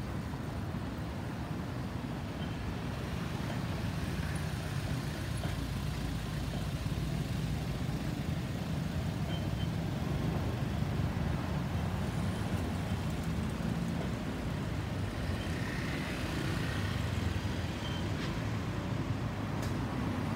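Airbus A320-216's CFM56 turbofan engines passing overhead at height: a steady low rumble.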